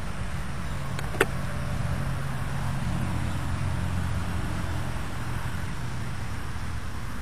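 A motor vehicle engine's low hum in the background, swelling a little through the middle and easing off after about five seconds. A single sharp click sounds about a second in.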